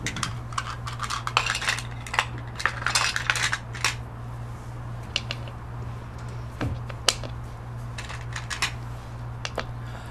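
Small counting beads clicking and clinking as they are handled and dropped into small cups from the test tube division material. They come in quick clusters over the first few seconds, then as scattered single clicks. A steady low hum runs underneath.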